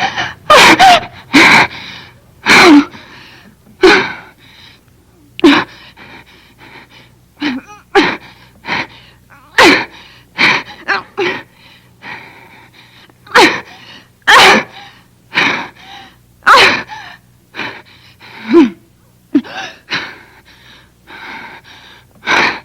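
A young woman crying desperately: loud sobs and gasping, shuddering breaths in repeated short bursts, a few louder wails among them.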